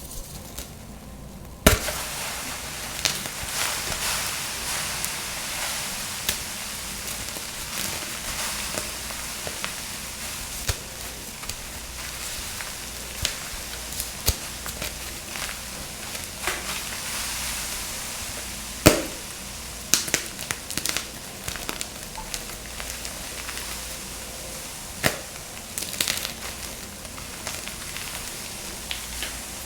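Blocks of dyed gym chalk being crushed and crumbled: a continuous dry crunching and crackling with sharp snaps scattered through it. It begins with a loud snap about two seconds in, and another strong snap comes about midway.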